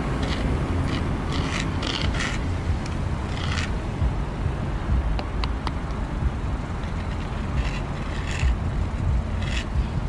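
Felt tip of a squeeze paint marker scraping over rough pavement in several short scratchy strokes as letters are written. Under it runs a steady low rumble.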